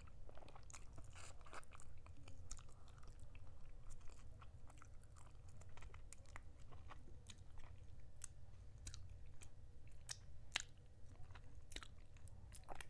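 Close-miked chewing and biting of a cooked chicken drumstick, with irregular small crunchy clicks, over a steady low hum.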